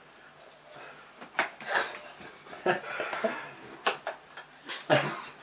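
Wooden spoon knocking against a person's head in the wooden spoon game: about five sharp, irregularly spaced wooden knocks, the last the loudest.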